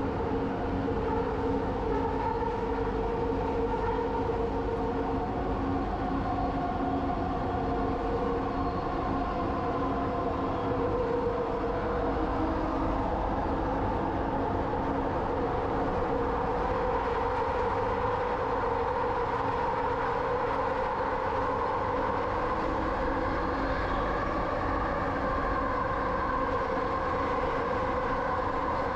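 Kelana Jaya line LRT train running between stations, heard from inside the car: a steady rumble with several held whining tones that drift slowly in pitch as the speed changes.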